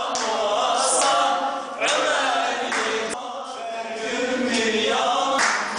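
Voices singing a Turkish folk song (türkü) in the Urfa style.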